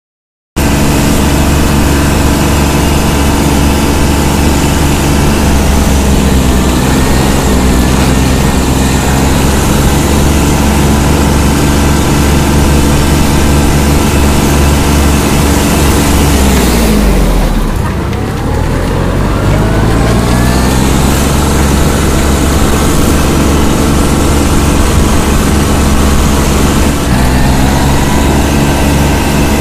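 Compact tractor diesel engine running hard at high revs, heard close up from a Farmtrac Atom 26. About 17 seconds in the engine note drops away, then climbs back up over a couple of seconds as it picks up speed again.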